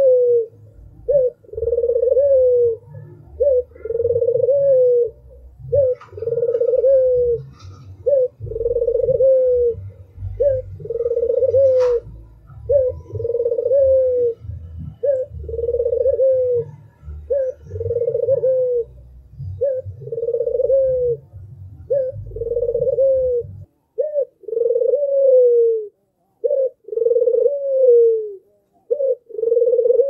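Albino (white, red-eyed) Barbary dove cooing over and over: each phrase a short note followed by a longer rolling coo that falls in pitch at the end, repeated about every two seconds.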